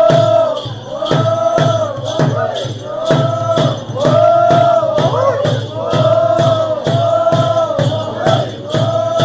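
Stick-dance music: sharp, regular clacks of thin canes struck together, over a steady drum beat and a short pitched phrase that rises and falls about once a second.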